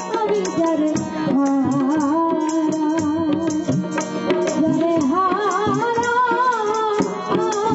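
Bengali biroho (song of separation): a voice singing a wavering, ornamented melody over rhythmic hand-drum percussion and accompanying instruments.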